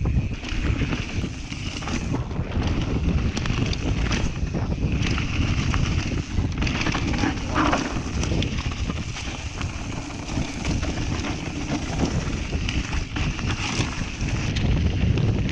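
Wind buffeting the microphone of a camera riding on a mountain bike, with the tyres rolling over snow and scattered clicks and rattles from the bike.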